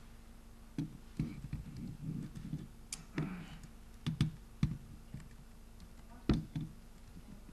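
Laptop keyboard being typed on: irregular key clicks and taps with soft low thumps, a couple of clicks about four and six seconds in louder than the rest.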